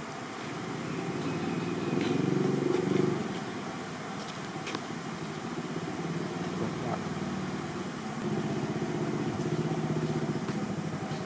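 A motor vehicle engine running nearby, growing louder about two seconds in and again about eight seconds in, with scattered small clicks and taps.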